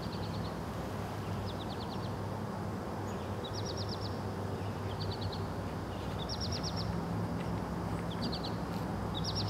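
A small unseen animal repeating one short call, a lower note followed by a quick run of four to six clicky pulses, about every second and a half. Under it runs a steady low hum with a dull rumbling background.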